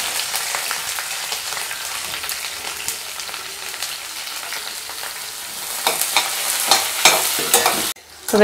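Sliced onions sizzling in hot groundnut oil in a stainless steel kadai, a steady high hiss, with a slotted metal spoon scraping and clicking against the pan as they are stirred, most in the last couple of seconds. The sound cuts out abruptly near the end.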